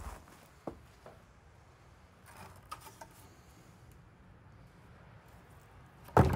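Scrap wooden boards being handled: a few light clicks and a soft rustle, then one sharp knock near the end.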